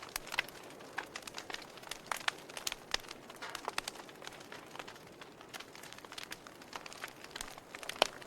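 Wood fire in a fireplace crackling, with irregular sharp pops and snaps over a faint hiss; one louder pop comes near the end.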